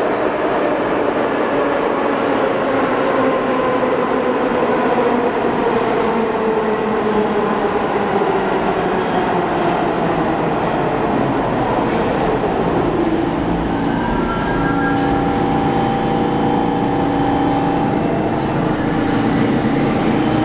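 R46 subway train braking into a station over freshly ground, grooved rail. The wheels on the rail make a tone that falls in pitch as the train slows, the "new rail sound" left by rail grinding done to cut wheel slip. Once the train has stopped, steady humming tones are held.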